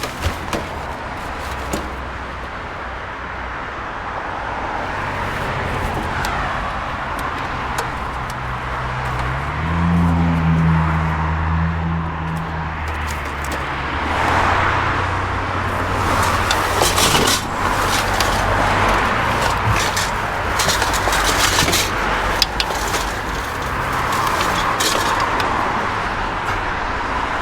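Car engine running with steady road noise; the engine note steps up partway through, and several sharp clicks and knocks come in the second half.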